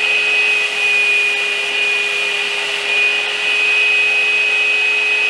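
Air-driven spray gun hissing steadily as it sprays finish onto a wooden ladder, with a steady high whine and a lower hum running through the hiss.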